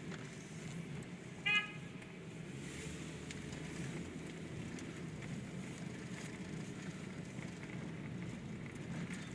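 Steady low rumble of a car driving, heard from inside the cabin, with one short car-horn beep about a second and a half in.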